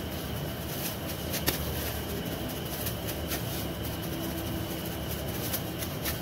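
Hands in thin plastic gloves handling and shaping a potato and minced-chicken cutlet mixture: soft crinkling and a few short sharp clicks, the loudest about one and a half seconds in, over a steady low hum.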